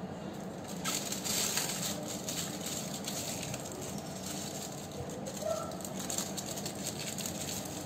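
Aluminium foil crinkling as hands wrap and twist it around a corn cob, loudest about a second in.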